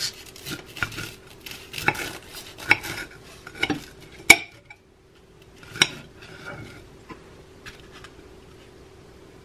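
Knife sawing through a crisp toasted grilled cheese sandwich: repeated crunches of the toast and clicks of the blade against the plate. The loudest click comes a little past four seconds in, and a few scattered crunches and taps follow.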